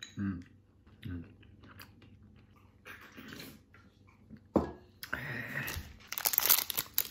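Eating and drinking sounds: a couple of short murmurs while chewing, then a sharp knock about four and a half seconds in as the drink can is set down. Near the end a plastic snack wrapper starts to crinkle loudly.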